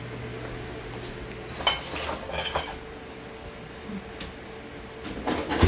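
Dishes and cutlery clinking as a plate is handled on a kitchen counter: a clatter about a second and a half in, a few quick clinks around two and a half seconds, and another clatter near the end.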